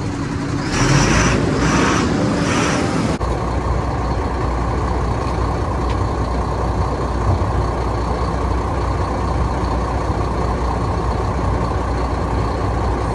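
Large diesel engine running steadily. Three short bursts of hiss come in the first few seconds, before the steady running takes over.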